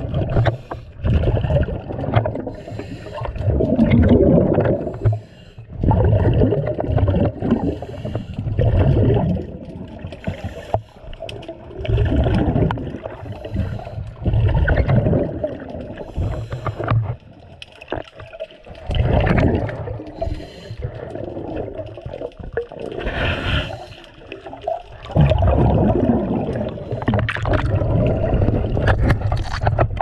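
A diver breathing underwater through a regulator: exhaled air bubbles rush and gurgle past the microphone in irregular bursts about every two to three seconds, with short lulls between them.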